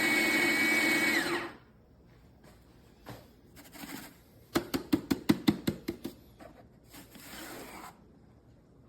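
Fellow Opus electric conical burr coffee grinder motor running with a steady whine, then switching off and winding down about a second in. After a pause comes a quick run of about ten sharp knocks in a second and a half.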